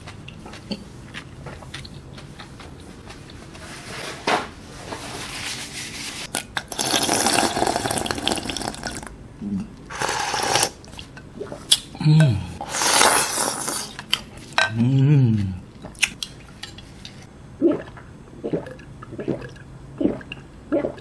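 A person slurping kimchi stew broth straight from a glass bowl in several long, noisy pulls, with short voiced sighs between them, then swallowing gulps of a drink.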